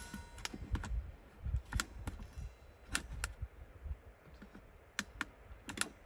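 Plastic buttons on a Chinese diesel heater's LCD controller clicking as they are pressed, about a dozen sharp clicks at irregular intervals, with a short electronic beep at the very start.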